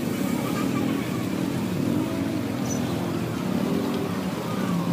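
Motor vehicles running in street traffic, engine pitch rising and falling again and again over a steady background noise.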